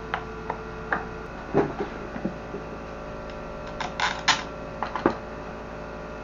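Scattered light clicks and knocks of an orbit fan's plastic housing, motor and wires being handled as a replacement motor is fitted, with a quick cluster of clicks about four seconds in, over a steady low hum.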